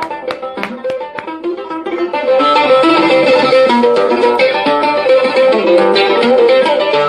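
Instrumental passage of a song on plucked strings: sparse plucked notes at first, then fuller and louder from about two seconds in.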